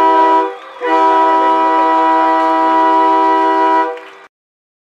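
A loud air horn sounding a chord of several notes in two long blasts: a brief break about half a second in, then held steady for about three seconds before it stops.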